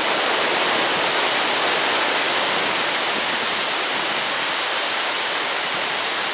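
Strong wind blowing steadily, a loud, even rushing hiss that neither rises nor falls.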